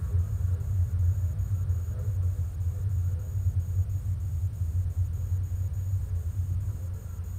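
Hyundai Coupé 1.6 16v driving, heard as a steady low rumble of engine and road noise that eases slightly near the end.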